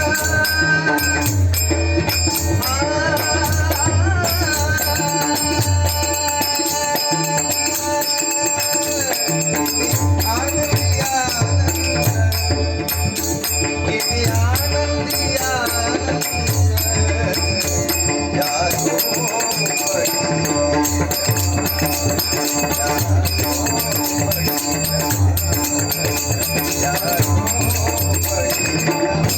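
Devotional bhajan music in raga Bhairavi: a bending melodic line over a steady drum beat, with small cymbals or jingles keeping time.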